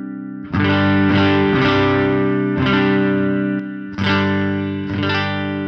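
Electric guitar strumming chords through the right-hand overdrive channel of a NUX Ace of Tone dual overdrive pedal, into a clean Jazz Chorus amp model. The tone is mildly overdriven and a bit muffled, with about five chords struck and left to ring.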